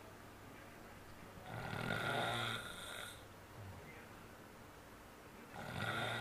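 A person snoring in sleep: one long snore about one and a half seconds in, and the next beginning near the end, with quiet breathing between.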